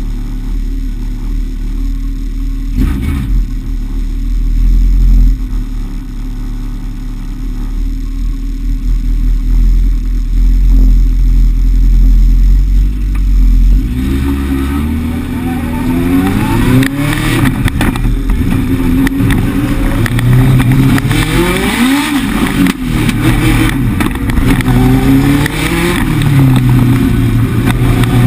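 Legend car's Yamaha 1200 cc motorcycle engine heard from inside the cockpit, idling steadily for about the first half. It then pulls away, the pitch climbing and dropping again and again as it revs up and shifts through the gears.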